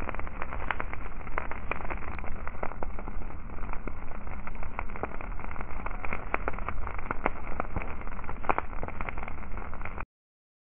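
Dry moorland grass burning, the flames crackling with many irregular sharp pops over a steady rushing noise. The sound cuts off suddenly near the end.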